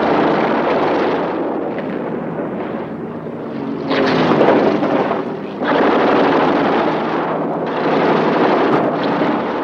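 Fighter aircraft engine noise during a ground-attack run, mixed with explosions, swelling louder for a moment about four seconds in.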